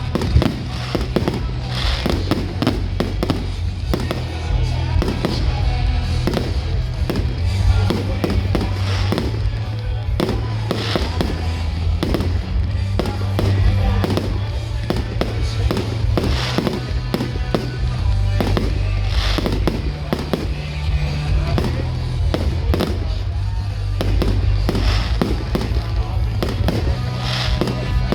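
Fireworks display: a continuous run of bangs and crackling bursts, with music with a steady bass line playing alongside.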